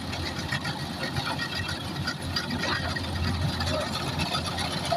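Kubota DC105X combine harvester's diesel engine running steadily, a constant low hum under the even noise of the working machinery.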